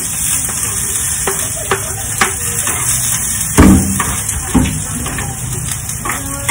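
Food sizzling in hot oil in a frying pan on a gas stove, with a spatula stirring and scraping in the pan. Light clicks and knocks run through it, the loudest knock about three and a half seconds in and another about a second later.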